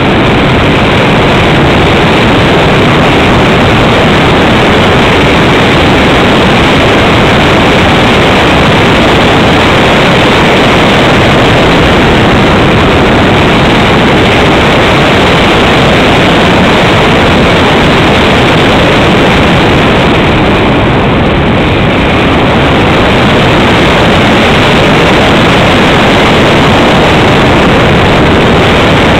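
Loud, steady rushing wind noise from airflow buffeting the microphone of a camera on a model glider in flight, with no motor tone to be heard.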